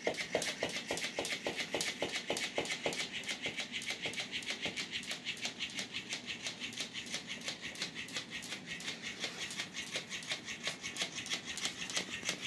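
Electric flopping-fish cat toy running on a wooden floor: its motor-driven tail flaps, and its joints clatter and tap in a fast, even rhythm of clicks. The clatter comes from joints that squeak and rattle for lack of lubrication.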